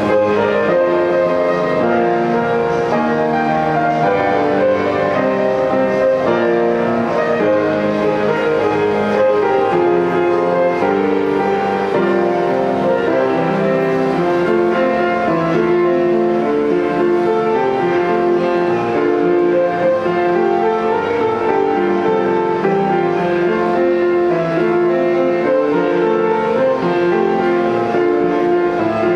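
Upright piano played with both hands: a continuous, flowing melody over chords at a steady loudness.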